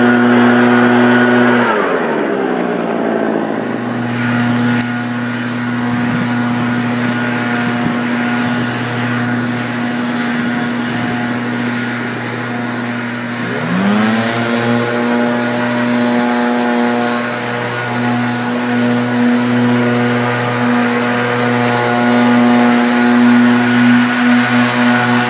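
Several two-stroke Husqvarna 580 backpack leaf blowers running at high speed with a steady drone. One winds down toward idle about two seconds in, and one revs back up to full throttle a little past halfway.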